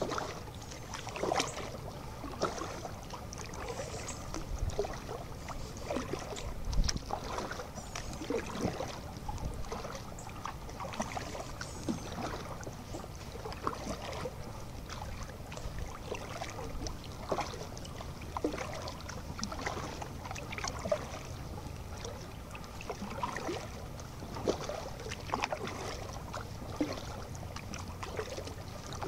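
Kayak being paddled: the paddle blades dip into the water and splash, with irregular short clicks and knocks over a steady low rumble.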